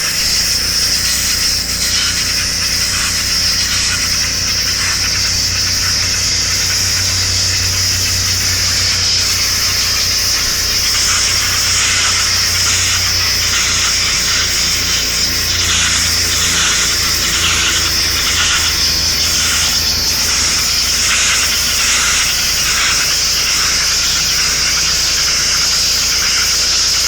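Pressure washer running: a high-pressure water jet hissing steadily against concrete roof tiles, over the low steady hum of the washer's motor.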